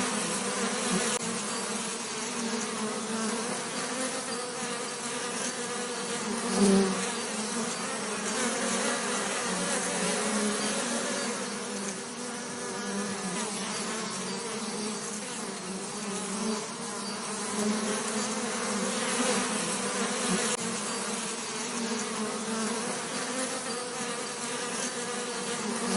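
Bees buzzing in a steady, wavering drone, with one brief louder swell about seven seconds in.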